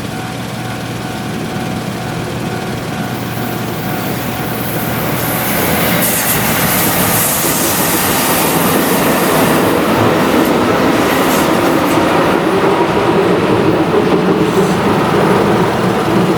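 A train passing a level crossing: wheels running on the rails, growing louder over the first six seconds or so and then staying loud.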